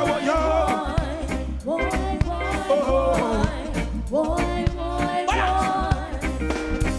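Live reggae band playing, with heavy bass and drums under female backing singers singing a melody.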